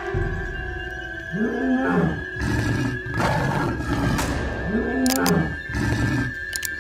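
Two long roars, each rising and then falling in pitch, about three seconds apart, over background music.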